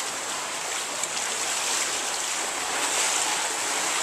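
Steady splashing and rushing of water in an indoor swimming pool, an even hiss with no clear separate strokes.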